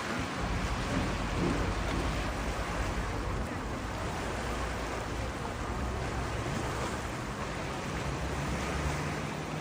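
Steady wash of sea water with wind noise on the microphone and a continuous low rumble underneath.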